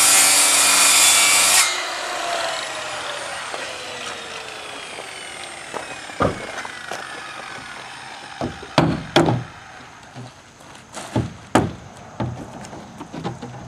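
Power saw cutting through wood roof sheathing for an air-intake slot, released about a second and a half in; its whine then falls steadily in pitch over several seconds as the blade winds down. Scattered sharp knocks and taps follow in the second half.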